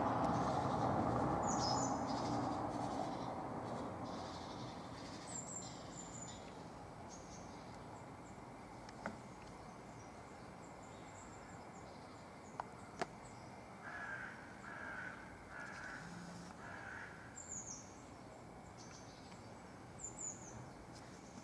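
Outdoor ambience with birds calling now and then: short high chirps, and a run of about four harsher repeated calls in the middle. A steady rush of background noise fades over the first several seconds, and a few faint clicks sound in the middle.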